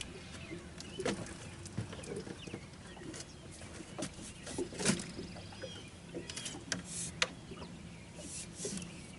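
Birds calling in the background over a low steady hum, with scattered sharp clicks and knocks; the loudest knock comes about five seconds in.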